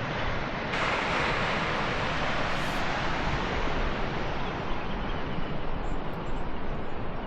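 Steady rushing of Ebor Falls, a large waterfall dropping into a gorge, turning brighter and fuller about a second in and then holding.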